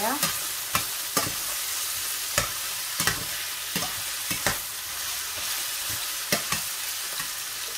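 Diced chicken sizzling in a stainless steel frying pan while being stirred with a slotted spatula, which scrapes and taps against the pan at irregular moments over a steady frying hiss.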